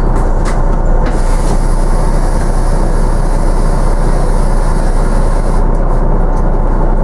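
Cabin noise aboard a moving Volvo B9TL double-decker bus with a Wright Gemini 2 body: a steady loud rumble of its six-cylinder diesel engine and the road, with a couple of sharp rattles in the first second.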